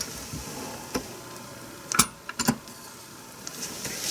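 Computer parts and cables being handled: a few sharp, irregular clicks and taps of hard plastic and metal, the loudest about two seconds in, followed by two quick ones.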